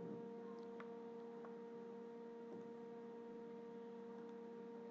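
Faint, steady electrical hum in the recording, made of several steady tones, with a few faint ticks.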